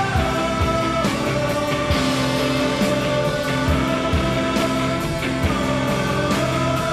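Background music: a held melody line that steps to a new note every second or two over a steady beat.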